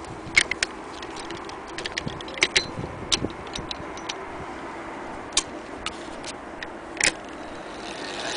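Irregular sharp metallic clicks and clinks as the hand-crank attachment of a Singer 66K sewing machine is handled against its handwheel. The clicks are unevenly spaced, with the loudest about half a second in, two around two and a half to three seconds in, and one near seven seconds in.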